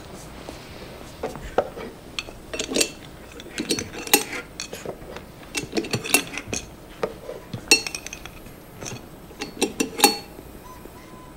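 Glass sample tubes and the parts of a laboratory centrifuge being handled: irregular light clinks and clicks with brief ringing, the loudest about ten seconds in.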